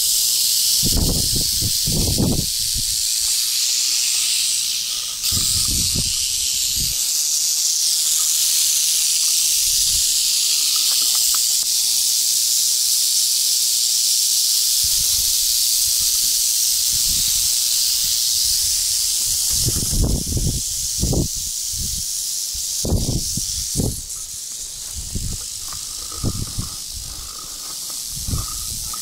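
Rattlesnakes rattling: a steady high buzzing hiss that softens a little near the end, with occasional low thumps.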